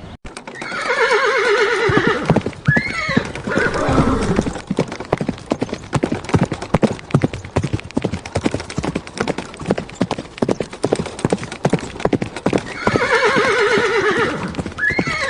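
Horse whinnying with a quavering pitch, then its hooves clip-clopping in a long irregular run of knocks, with a second whinny near the end.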